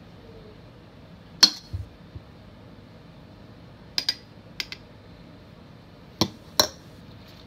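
Metal spoon clinking against a ceramic ramekin: several sharp, separate clinks, the loudest about a second and a half in, then a pair near the middle and two more near the end.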